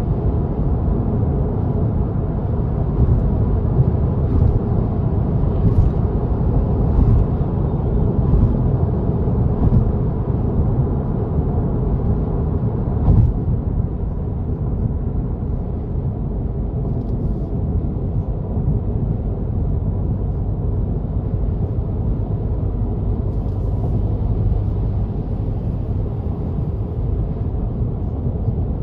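Steady road and tyre rumble of a car driving on an expressway, with a few light knocks in the first half.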